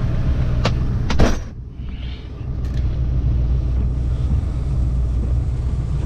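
Ford F-350 pickup's engine idling with a steady low rumble. About a second in come a few sharp knocks of boots being banged off; the loudest comes just before the sound turns muffled, as when a truck door shuts.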